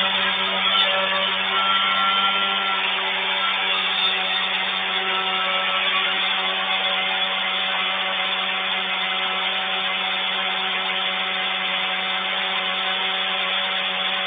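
A motor running steadily at one unchanging pitch, a drone with a hiss over it.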